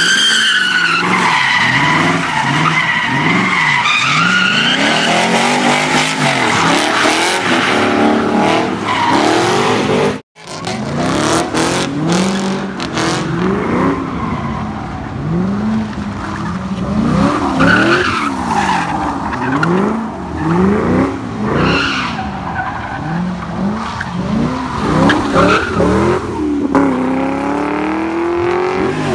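Corvette V8s doing donuts: the engine revs up and down about once a second while the rear tyres squeal and slide. The sound drops out briefly about ten seconds in and then picks up with another car.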